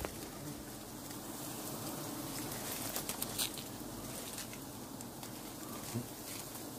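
Faint steady hum of a giant honeybee colony swarming around its comb after being smoked out, with a few sharp clicks about three seconds in.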